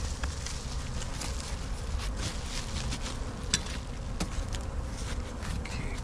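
Honeybees buzzing steadily around a hive, with a few light clicks through it.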